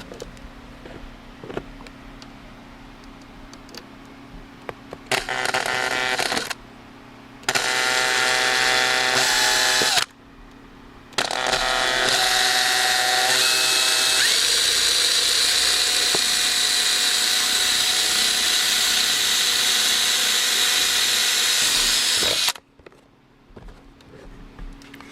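A handheld power tool working on a plastic bumper cover, run in three bursts. A short one comes about five seconds in, another around eight seconds, then a long run of about ten seconds from eleven seconds in. The long run turns from a steady whine to a rough hiss as it bites into the plastic.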